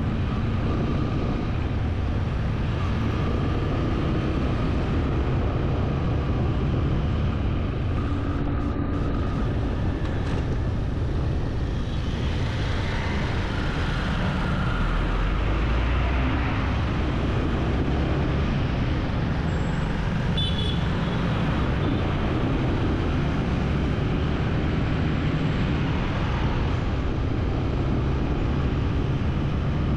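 Steady vehicle noise: a continuous low rumble with no breaks.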